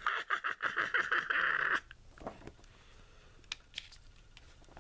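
Comic book pages rustling and crinkling for about two seconds as the book is handled and a page turned, followed by a few faint clicks and taps.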